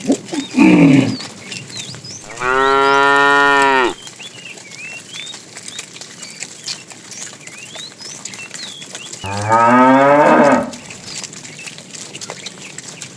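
Cattle mooing three times: a short call falling in pitch at the start, a long steady moo about two seconds in, and another moo falling in pitch near the end.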